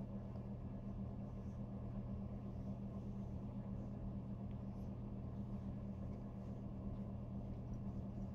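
Steady low hum of the Hardinge metal lathe's electric drive running, with a few faint clicks as the tool post and carriage handwheel are handled.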